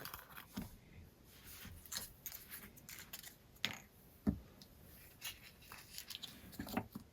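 Hands handling a rubber RC crawler tire and self-adhesive patches: scattered faint rustles and clicks, with two sharper knocks a little past the middle.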